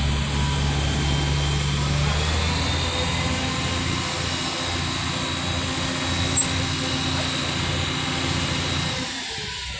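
Concrete mixer truck running: a steady low engine drone with a thin high whine above it. The drone eases off about two seconds in, and the sound falls away near the end.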